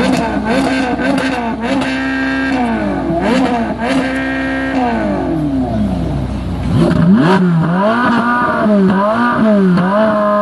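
Two Ferrari engines revved in turn from a standstill, answering each other with throttle blips. In the first half the revs are held for a second or so and then fall away; from about seven seconds in, the blips come quicker, rising and dropping roughly twice a second.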